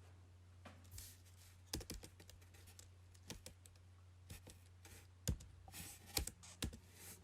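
Irregular light clicks and taps, a few louder ones in the second half, over a faint steady low hum.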